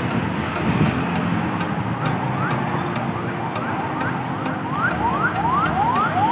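An electronic siren repeating quick rising sweeps, about three a second, faint at first and growing louder from about two seconds in. It sounds over a steady low rumble of machinery and traffic.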